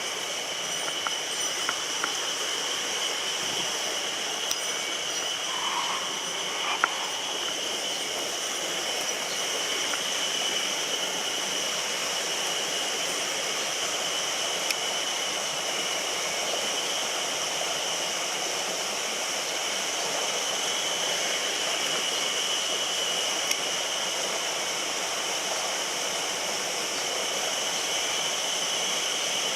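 Mountain stream running, a steady rush of water, with a few sharp clicks now and then.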